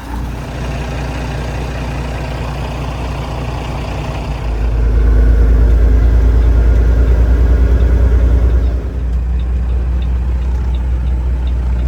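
Heavy vehicle engine running steadily. It grows louder about four and a half seconds in, then eases back near nine seconds.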